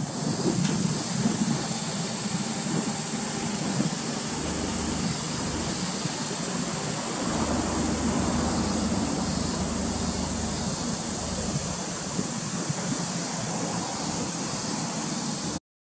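Steady outdoor background noise with a low rumble of distant road traffic that swells and fades, over a constant hiss; the sound drops out for a moment near the end.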